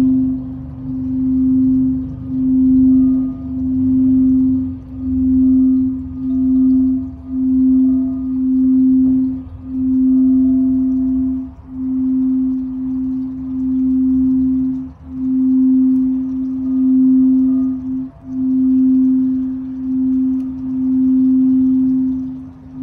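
Frosted quartz crystal singing bowl sung by rubbing a mallet around its rim: one low steady tone that swells and fades in slow pulses, with faint higher overtones coming and going.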